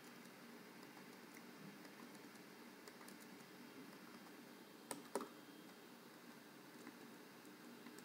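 Faint computer keyboard keystrokes, scattered light taps, with two louder clicks close together about five seconds in.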